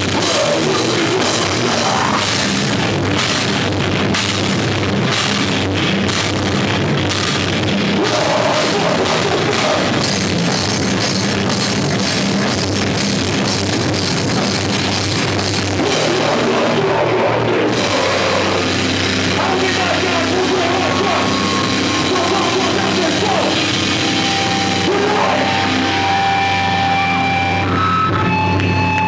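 Live heavy metal / hardcore band playing loud: drum kit with crashing cymbals, distorted electric guitars and bass. Near the end the playing thins out and several held tones ring on.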